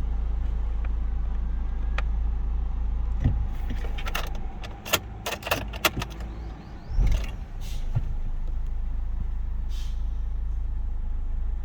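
Steady low rumble of a car heard from inside the cabin, with a run of sharp clicks and knocks around the middle, when the rumble briefly drops.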